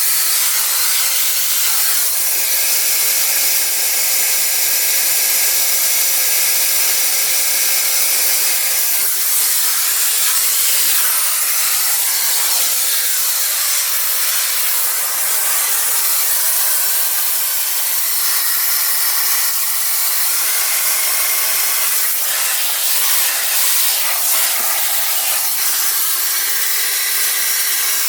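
Electrolux Ergospace canister vacuum cleaner running with a steady airy hiss. Faint whining tones in it change pitch every few seconds.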